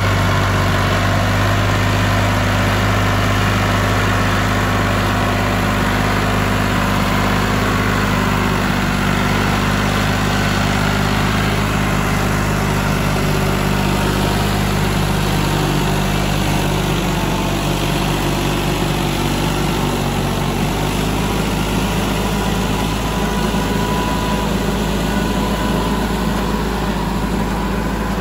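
Ford New Holland farm tractor's diesel engine running steadily under load, pulling a tractor-mounted super seeder.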